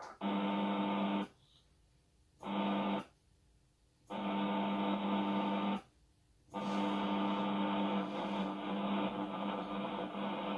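HF amateur radio transceiver's receive audio on the 80 m band: a hiss with a few steady low tones. It cuts out three times for about a second each, then runs on steadily.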